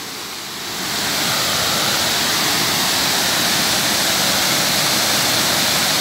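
Waterfall cascading over rock slabs: a steady rush of white water, getting louder about a second in and then holding level.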